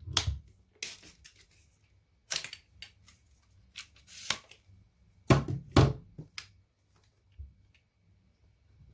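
Irregular plastic clicks and knocks with brief rustling as a cordless stick vacuum cleaner's parts are handled. The heaviest knocks come about five to six seconds in. There is no motor running.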